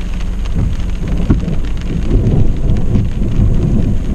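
Thunder rumbling from a nearby lightning strike, swelling about halfway through, over steady falling rain.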